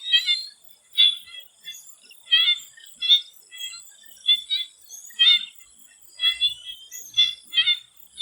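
Swamp frogs calling in short, ringing notes, irregularly about once or twice a second, over a steady high-pitched insect drone.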